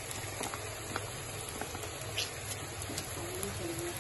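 Steady cooking hiss from a steel kadhai of boiled chowmein noodles over a lit gas burner, with a few faint ticks.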